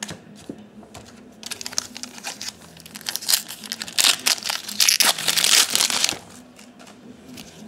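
Foil wrapper of a 2012 Topps Series 2 baseball card pack crinkling and tearing as it is opened. It starts about a second and a half in, is loudest from about three to six seconds in, and stops shortly after.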